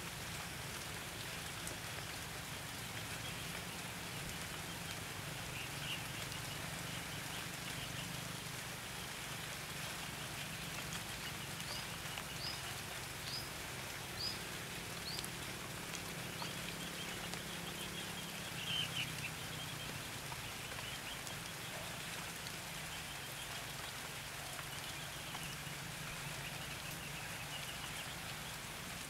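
Steady rain falling, with red-whiskered bulbuls singing and calling now and then over it, including a run of five short, high notes about midway.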